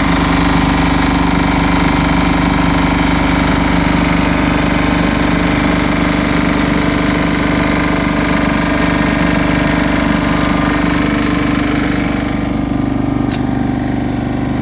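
Kipor generator set's engine running steadily. About twelve seconds in, the sound turns a little duller and quieter, and a single sharp click follows a second later.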